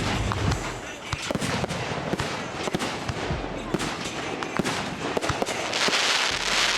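Aerial fireworks going off: many sharp bangs and pops in quick, irregular succession. A loud spell of dense crackling hiss comes about six seconds in.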